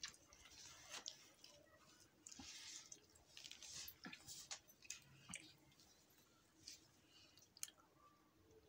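Faint sounds of people eating: chewing, with small scattered clicks and soft rustles of hands handling food.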